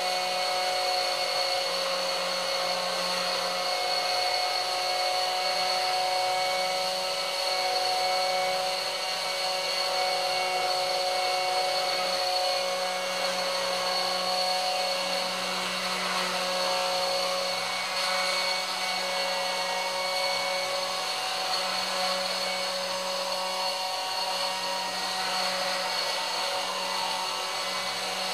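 Homemade CNC router's spindle motor running steadily with a high whine while its bit mills a groove into a board, and a lower hum that swells and fades under it.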